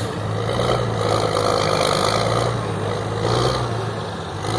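Logging truck's diesel engine running, a steady low drone that eases off a little near the end.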